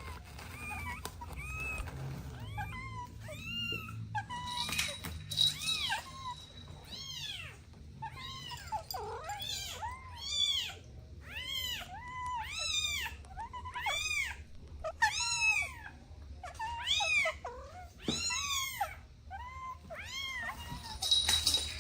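Kittens meowing over and over, high-pitched meows about one a second, each rising then falling in pitch.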